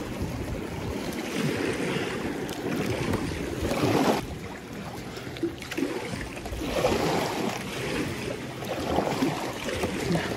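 Water sloshing and splashing around a kayak, swelling every two to three seconds, with wind on the microphone.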